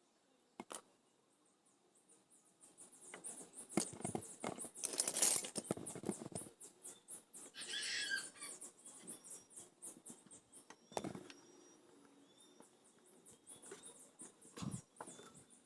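Small workbench handling noises: a long run of rapid scratchy ticks and rustling, loudest about five seconds in, then two separate sharp knocks.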